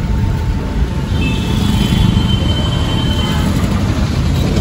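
Rumble and rattle of a rickshaw ride through street traffic, with a thin steady squeal from about a second in until past three seconds.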